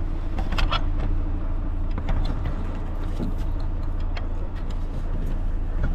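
Rosenbauer airport fire truck's engine running steadily at idle, a low even hum. A few light knocks come from someone climbing down the truck's handrail and ladder.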